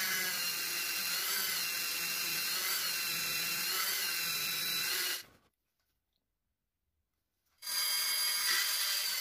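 Dremel rotary tool running at high speed, grinding into wood with a small bit: a steady high whine with small regular dips in pitch about every half second. The sound drops out completely for about two seconds past the middle, then the whine carries on.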